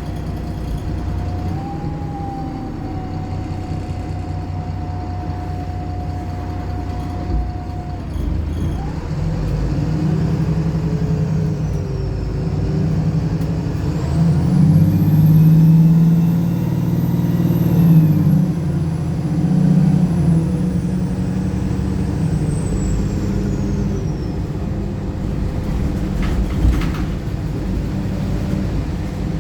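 Wright Pulsar single-decker bus's diesel engine driving under load, with a steady whine at first. It then pulls harder and louder for several seconds in the middle, with a high whistle that rises and then falls away, before settling back.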